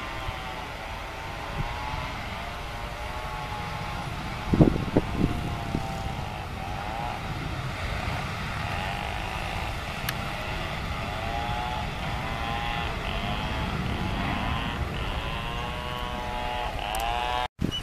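Boeing 737 jet engines heard at a distance on the takeoff roll: a steady drone with a whine that wavers up and down, over low rumbling wind on the microphone. A loud knock about four and a half seconds in.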